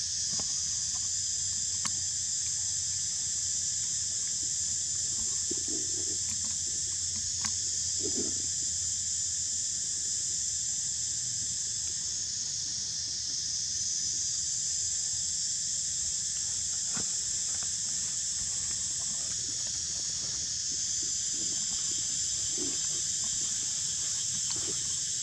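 Steady high-pitched insect chorus, swelling and easing every several seconds, with a few faint short clicks and low blips underneath.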